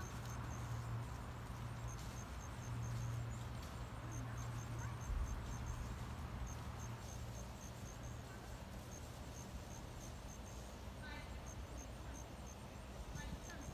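Insects chirping: short runs of high-pitched pulses, about five a second, repeating over a low steady hum.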